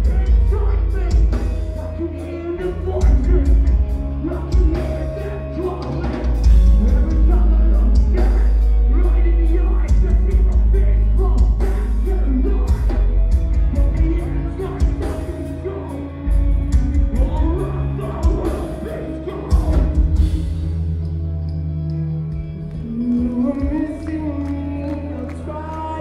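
A post-hardcore band playing live, recorded from within the crowd: distorted electric guitars, bass and drums under a singer's vocals. About twenty seconds in, the drum hits stop and held low chords ring on, with the melody coming back in near the end.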